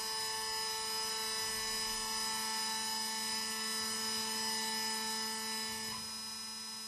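Hydraulic test stand running with a steady machine hum and a high whine, several fixed tones held without change; one of its tones drops out about six seconds in.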